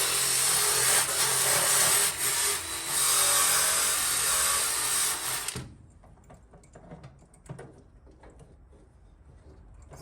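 Small power sander abrading rust off car sheet metal, running steadily with a motor hum, then switched off about five and a half seconds in. Light clicks and taps of handling follow.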